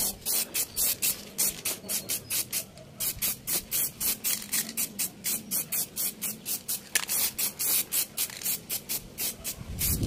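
Aerosol can of gray spray primer hissing in rapid short bursts, about four or five a second, as primer is dusted onto a plastic motorcycle fairing. The bursts pause briefly twice.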